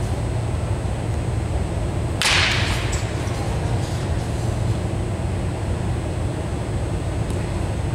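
A baseball bat swished through the air in one swing: a short whoosh about two seconds in, over a steady low background hum.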